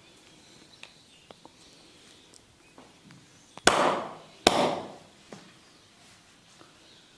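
Two loud sharp cracks about a second apart, each trailing off in a brief rustle, made by a barber's hands striking or snapping on the client's head during a massage. Faint scattered ticks of hand movement come before and after.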